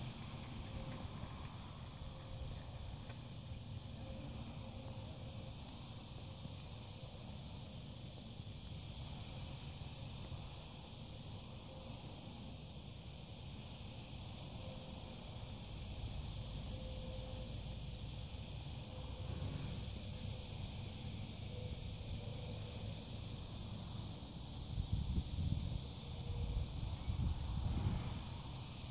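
Steady high-pitched chorus of insects buzzing, over a low rumble of wind on the microphone that grows stronger near the end.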